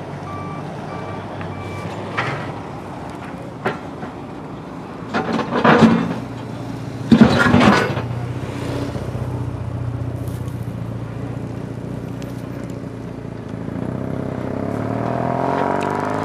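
An engine running steadily, with a few sharp knocks and two loud clattering bursts about five and seven seconds in; near the end the engine revs up, its pitch rising.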